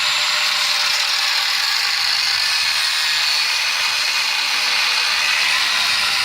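Angle grinder with a cutoff wheel cutting through a Jeep's control arm, running steadily at high speed with a hissing, high-pitched whine.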